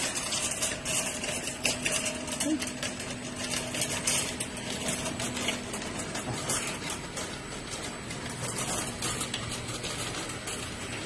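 Wire shopping cart rattling as it is pushed over a paved floor: a dense run of quick clicks and knocks that thins out into a steadier rumble in the second half.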